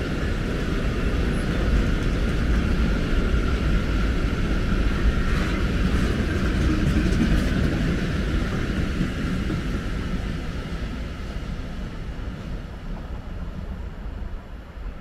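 Freight train of DB Cargo hopper wagons rolling past on the rails: a steady rumble of wheels and track with a high tone above it, fading away over the last few seconds as the end of the train passes and moves off.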